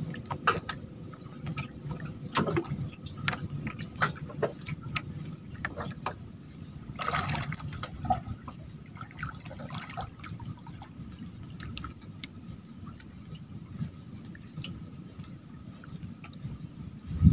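Water lapping and splashing against a small fishing boat, with scattered clicks and knocks. There is a longer splash about seven seconds in and a sharp thump at the very end.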